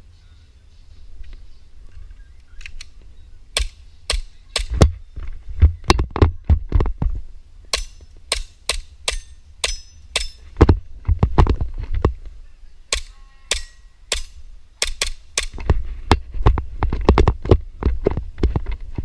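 EMG Umarex Glock 34 gas-blowback airsoft pistol firing strings of sharp pops in quick succession, dozens of shots in runs of several, with short pauses between runs as the shooter moves from target to target.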